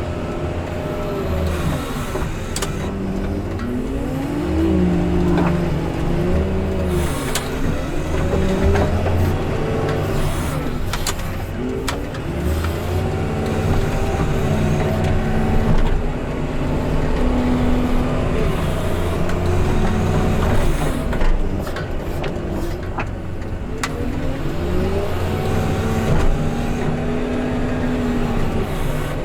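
Diesel engine of a snow-removal machine working, its pitch rising and falling again and again as it is revved up and eased off, with a few knocks along the way.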